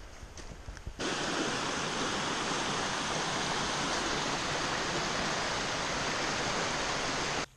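Waterfall cascading over rock slabs: a loud, steady rush of water that cuts in suddenly about a second in and stops abruptly near the end. Before it, a few faint footsteps on a dirt trail.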